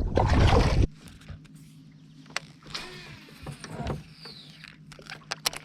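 A loud rushing noise stops abruptly about a second in. It leaves a faint, steady low hum of a small motor, with scattered clicks and light knocks.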